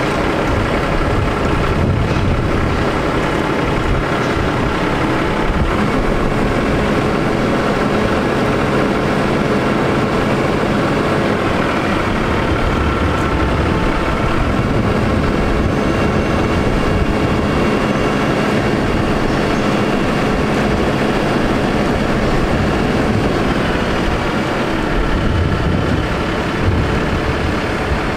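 Cummins ISX diesel engine of a Kenworth T800 crane truck running steadily at a constant speed. It is driving the Altec crane's hydraulics as the boom is raised.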